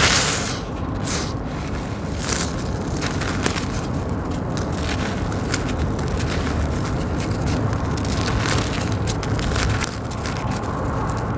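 Dry sand-cement chunks crunching and crumbling in bare hands, with gritty grains crackling and trickling down. A louder crunch comes at the very start, then a run of smaller crackles.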